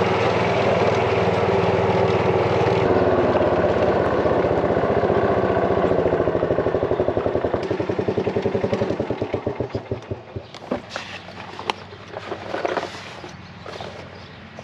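Club Car golf cart's engine running as it drives, then slowing into a stutter of widening pulses and stopping about eight to ten seconds in as the pedal is let up. A few light knocks follow.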